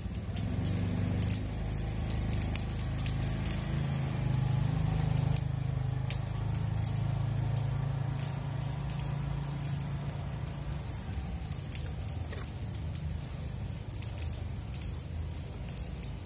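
A low engine hum, like a motor vehicle running nearby, swells over the first few seconds and fades out about eleven seconds in. Scattered light clicks and crackles of tape being handled run throughout, over a thin steady high tone.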